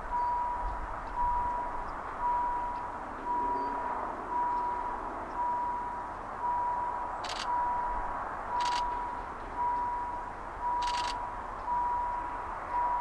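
Railway level crossing warning signal ringing steadily about once a second, each high ding sharp and then dying away, starting suddenly as the crossing activates for an approaching train. A few sharp clicks sound in the second half.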